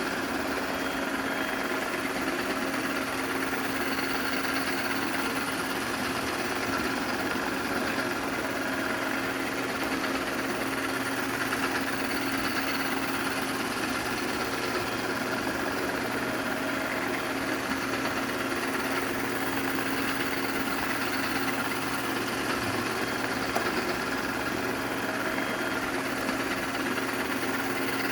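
Ecovacs robot vacuum cleaner running: a steady hum of its motor and suction fan with a constant low tone and hiss.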